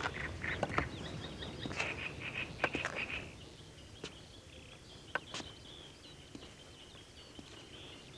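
Outdoor ambience with small birds chirping and scattered sharp clicks, busiest for the first three seconds. After that it quietens to occasional chirps over a faint, steady high thin tone.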